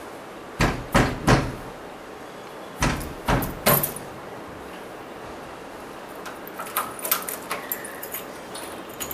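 Knocks and clatter of a screwdriver forcing a wardrobe door's broken lock: three sharp knocks close together, three more about two seconds later, then a run of lighter metallic clicks and rattles near the end.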